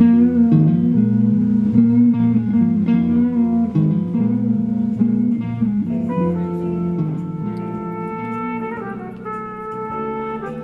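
Blues guitar playing without singing. About six seconds in, long held notes of another instrument come in while the guitar fades.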